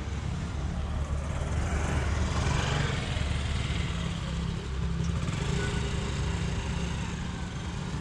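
A motor scooter's small engine running as it rides past close by, over a steady low rumble.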